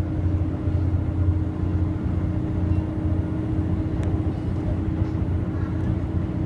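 Passenger train running, heard from inside the carriage: a steady low rumble of engine and wheels with a constant hum over it.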